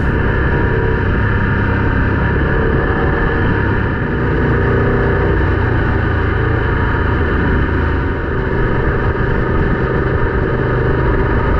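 BMW GS adventure motorcycle's boxer-twin engine running at a steady speed while riding along a gravel road.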